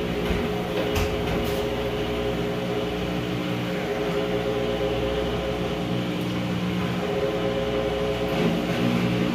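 Washing machine running with a steady mechanical hum; its pitch shifts slightly near the end.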